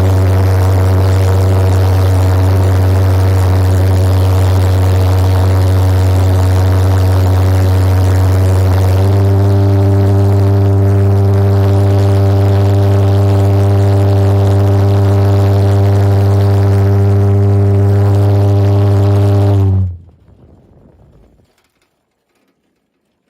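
Go-kart's homemade pulsejet engine running at about half throttle with a loud, steady low buzzing drone. About nine seconds in the tone steps up slightly and grows stronger, and near the end the engine cuts off suddenly, leaving a short faint rumble.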